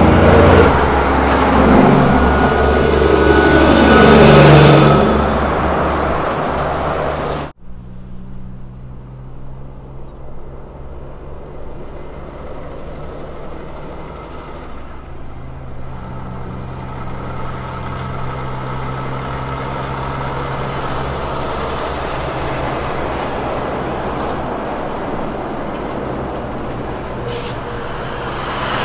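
Kenworth road train's diesel engine pulling away under load, its pitch climbing and dropping again through gear changes and loudest about four to five seconds in. After a sudden cut, another Kenworth truck's engine approaches, quieter and building slowly.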